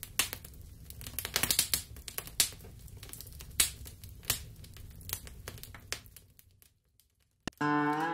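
Fire crackling, with irregular sharp pops over a low rumble, dying away after about six seconds. Acoustic guitar music starts just before the end.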